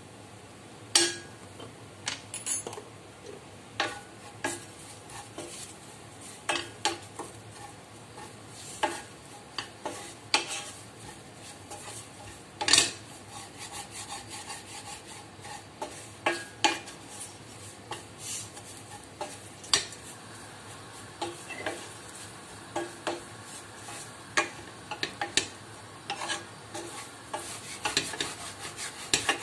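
Stirring greens and spices in a non-stick pot with a wooden spatula: irregular knocks and scrapes against the pot over a low sizzle of frying.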